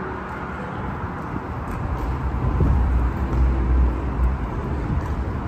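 Steady road traffic noise from the elevated highway overhead, with a low rumble that grows louder about halfway through.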